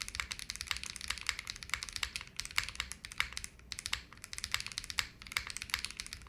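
Fast, continuous typing on a JRIS75 75% mechanical keyboard fitted with Moon v2 linear switches and GMK keycaps, a rapid run of key clacks with a couple of short breaks partway through.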